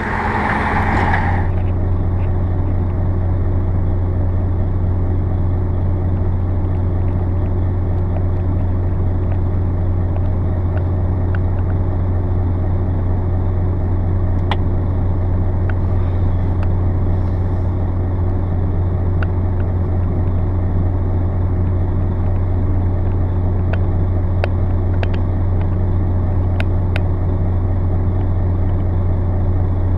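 Heavy truck engine running steadily with a constant low drone, a few faint clicks over it.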